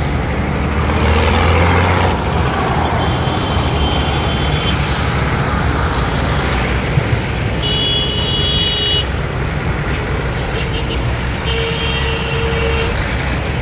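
A column of diesel farm tractors passing close, engines running steadily and loudest in the first two seconds. Horns sound briefly three times, about three, eight and twelve seconds in.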